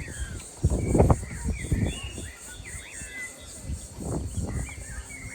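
Outdoor woodland ambience: songbirds chirp repeatedly, and a steady, high, pulsing insect buzz runs underneath. Low rumbles and thumps, loudest about a second in, sit over the top.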